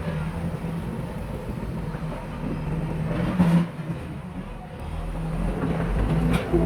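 Diesel engine of heavy earthmoving machinery running steadily, with a sharp knock about three and a half seconds in and another near the end.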